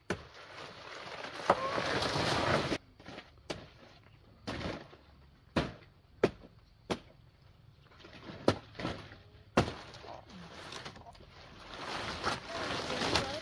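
Rustling of leaves and stalks, with about eight sharp knocks or chops at uneven intervals, from bananas being cut and handled.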